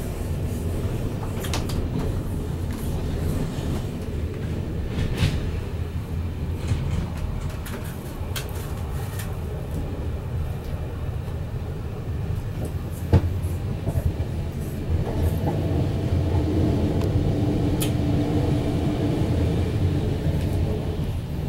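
Train running, heard from inside the carriage: a steady low rumble with scattered sharp clicks, and a humming tone that comes in about fifteen seconds in.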